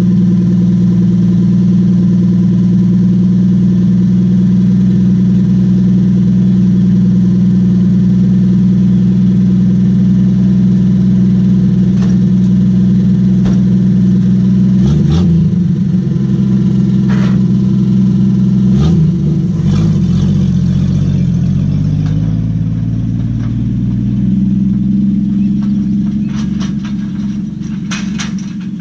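Willys pickup's engine idling steadily, then revving up and down twice as the truck pulls away. It drives off, and its sound gets somewhat fainter near the end.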